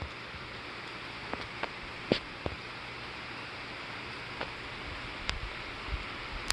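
Steady outdoor hiss of storm wind, with several scattered sharp ticks at irregular intervals.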